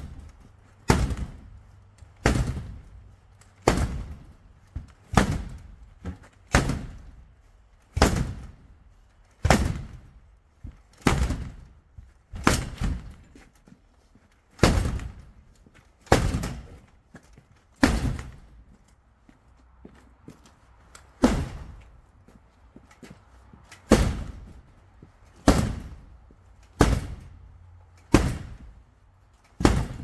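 Firefighter's axe striking a sectional garage door panel again and again to force entry, one sharp bang about every second and a half, each with a short fading ring.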